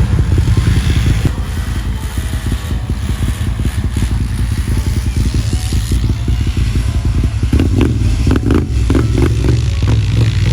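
Small off-road vehicle engine running steadily, with a run of sharp clattering knocks about three-quarters of the way through.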